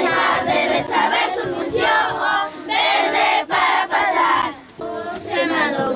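A group of children singing and shouting together in chorus, loud phrases with short breaks between them.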